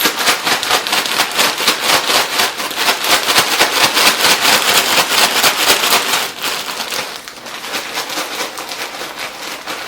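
Crushed chips and dry ramen noodles being shaken and kneaded together inside a crinkly chip bag: a dense, rapid rustling and crackling that eases off after about six seconds.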